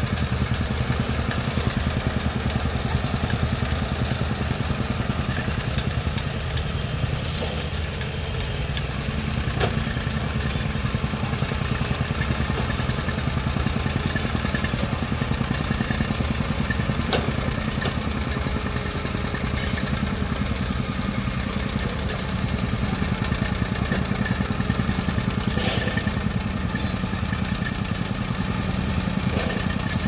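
Petrol tamping rammer (jumping-jack compactor) running steadily, its small engine and pounding foot making a fast, even chatter as it compacts the trench soil.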